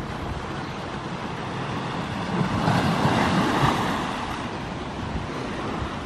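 Ocean surf breaking, a wash of noise that swells to a peak a little over two seconds in and then subsides, with wind buffeting the microphone.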